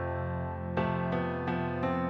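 Slow background music on a keyboard: a sustained chord ringing, then single notes struck a few times in the second half.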